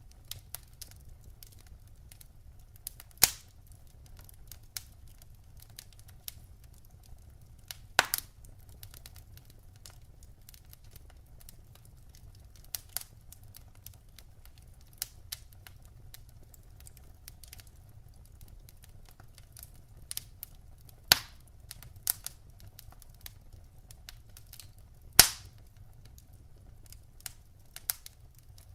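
Wood fire burning in a fireplace: a low steady rumble of flames with frequent small crackles and a few loud, sharp pops at irregular intervals.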